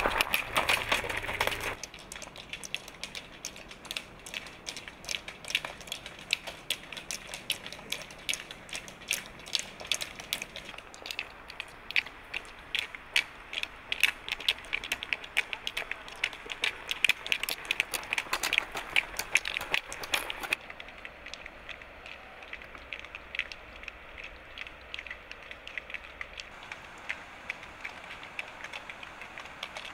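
Ski-pole tips and running shoes striking loose gravel as several people bound along with poles: a dense, irregular patter of sharp clicks and crunches, busiest through the middle and thinning out near the end.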